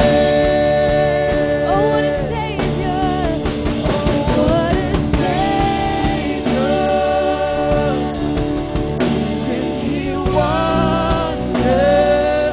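A live contemporary worship band: a male and a female voice singing long held phrases into microphones over acoustic guitar and keyboard.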